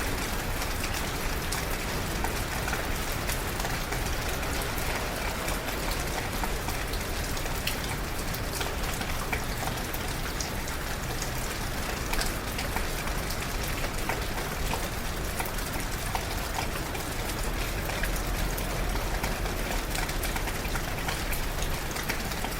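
Steady rain heard from under a shelter, with many separate drops and drips striking close by over an even hiss of rainfall.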